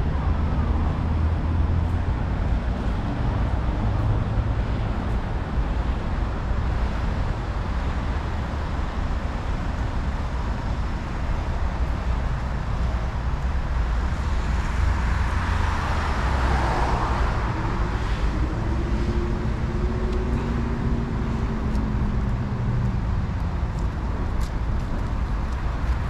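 Steady road traffic from cars and buses on a multi-lane city road, with a vehicle passing close about halfway through and an engine note that rises and falls shortly after.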